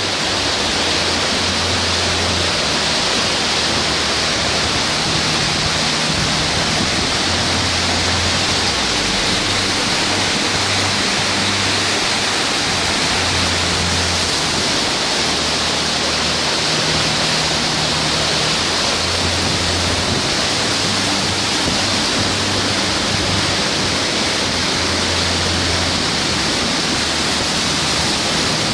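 Floodwater running fast down a flooded street: a loud, steady rushing hiss without breaks.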